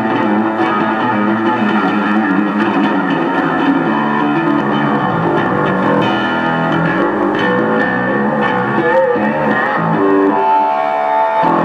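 Amplified electric bass solo played live: quick runs of notes, with a few held notes near the end.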